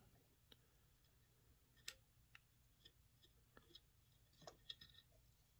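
Near silence broken by faint clicks of small plastic and metal parts being handled at a Lucas A115 alternator's brush holder as the brushes are taken out, with one sharper click about two seconds in and a short run of little clicks near the end.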